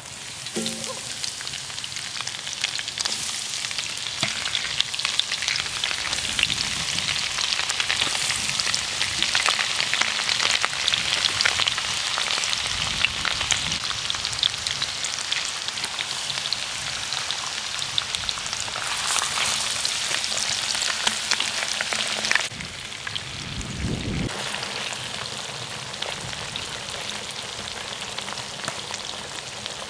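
Shemaya fish dredged in corn flour sizzling as they fry in a pan of hot vegetable oil and butter. The sizzle is loudest a little past halfway, then drops suddenly to a quieter, steady fry.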